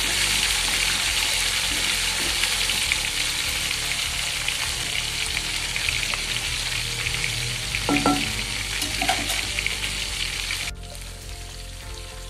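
Whole marinated chicken shallow-frying in a little hot oil in an aluminium pot, sizzling steadily while a wooden spatula stirs and turns it, with a brief knock about eight seconds in. Near the end the loud sizzle cuts off suddenly, leaving a much quieter sizzle.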